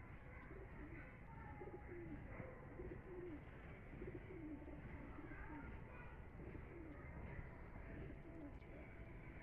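Domestic pigeons cooing: a run of faint, low coos repeated every second or so.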